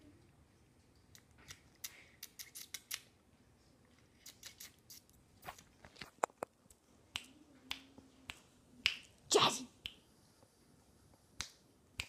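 Scattered sharp clicks and smacks from a puppy mouthing and chewing at a vitamin tablet, with a quick run of clicks about two seconds in and one louder knock about nine seconds in.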